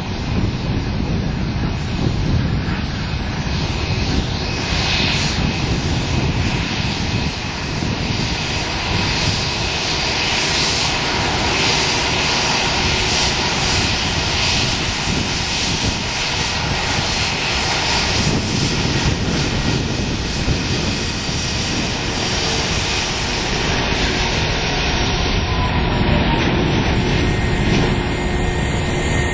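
Airbus A380's four Rolls-Royce Trent 900 turbofans at take-off thrust as the airliner makes its take-off roll and lifts off near the end: a loud, steady jet noise with faint whining tones.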